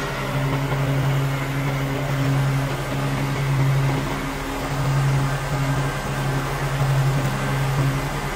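Red commercial zero-turn mower's engine running steadily while it cuts grass, a low hum over a wash of engine and blade noise, easing slightly about halfway through.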